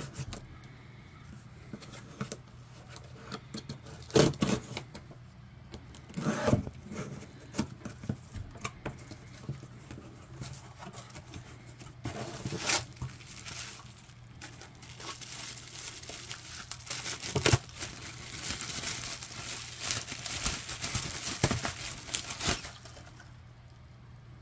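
A cardboard shipping box being opened and unpacked by hand: packing tape cut with a knife and torn, cardboard flaps rustled and knocked a few times, then several seconds of bubble wrap crinkling as the aluminium parts are unwrapped, stopping shortly before the end.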